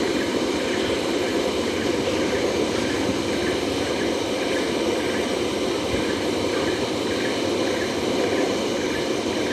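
Steady rushing noise with a faint, regular pulsing higher up.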